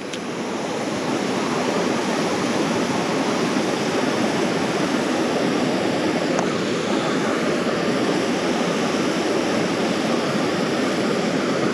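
Steady rush of flowing water, an even continuous noise that swells slightly over the first second and then holds.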